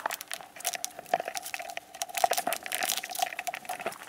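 Twisted paper cord crackling and rustling as it is pulled by hand between the taut cords of a stool seat during weaving, a dense run of small irregular crackles and clicks.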